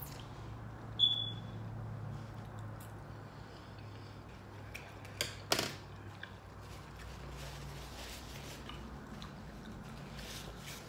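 Quiet room with a low steady hum; a short, high ringing ping about a second in, then a couple of sharp clicks of tableware on a glass platter around the middle.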